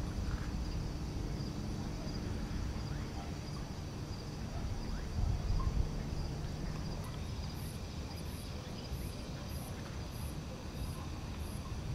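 Night insects chirring: a steady high trill, joined about seven seconds in by rhythmic high chirps a little over two a second, over a low steady rumble.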